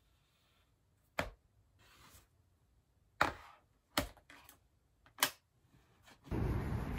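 A MacBook lid being shut and a tablet in a folio case set down on top of it on a desk: four sharp knocks with a few lighter taps between. Near the end a steady rushing noise starts abruptly.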